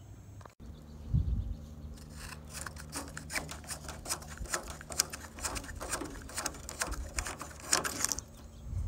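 Quick, irregular small clicks and rattles of a wingtip navigation light socket and its wire being handled and pulled out of an aluminium wingtip, over a steady low hum.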